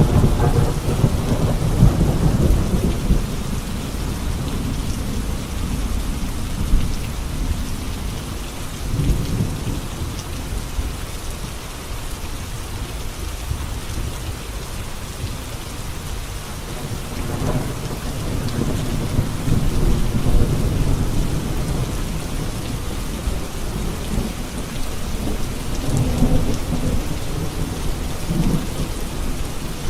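Heavy rain falling steadily on a road. Deep low rumbles swell and fade several times: one at the start, one about a third of the way in, a longer one past the middle, and another near the end.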